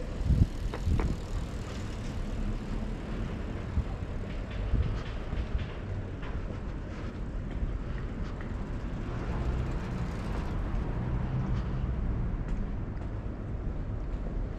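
Street ambience of road traffic running past along an urban road, with a low engine hum swelling and fading about two-thirds of the way through. A few brief knocks sound in the first second.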